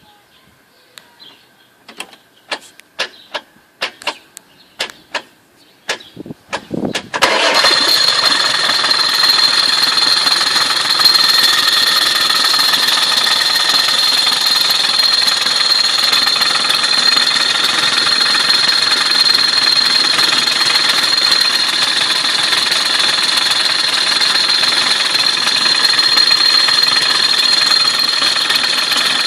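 A series of sharp clicks, then a Land Rover 300Tdi 2.5-litre four-cylinder turbodiesel starts about seven seconds in and runs steadily, with a strong high-pitched whine over the engine note. The engine is being run to show a strange sound the owner has not identified.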